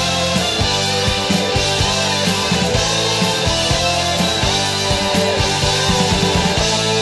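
Background rock music with a steady drum beat; the drums stop just before the end.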